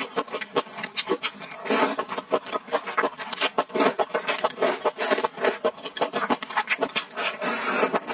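Close-miked eating sounds as fried rice and noodles are pushed from a bowl into the mouth with chopsticks and chewed. There are many quick, crisp wet smacks and clicks, and a couple of longer noisy stretches.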